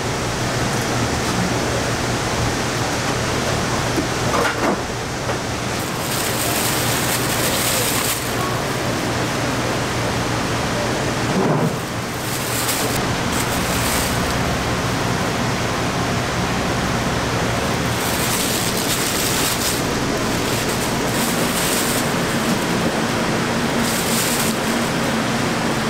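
Clear plastic bag crinkling in several short bursts as raw shrimp are bagged by hand, over a steady rushing noise with a low hum.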